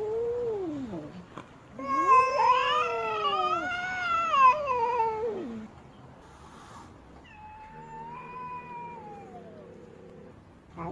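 Female cat yowling in three drawn-out wails. A short rising-and-falling one comes first, then a long, loud, wavering one of about four seconds, then a fainter one that falls away.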